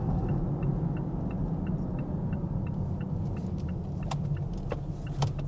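Steady low rumble of a car driving, heard inside the cabin, with a faint regular ticking about three times a second and a few light clicks near the end.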